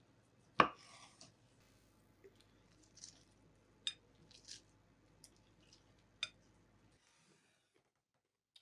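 A chef's knife slicing through a smoked egg and knocking sharply on a wooden cutting board about half a second in. A few lighter clicks and taps follow over the next several seconds.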